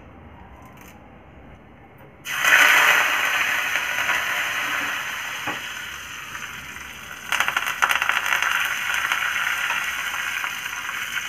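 Hot oil in a small tempering pan bursts into loud sizzling about two seconds in as curry leaves go into it with the mustard seeds, then slowly settles. A fresh burst of spluttering and crackling comes about seven seconds in.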